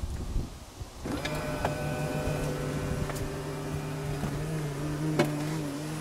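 An electric motor in a Tesla Model X runs steadily for about five and a half seconds, starting about a second in, with a sharp click near the end.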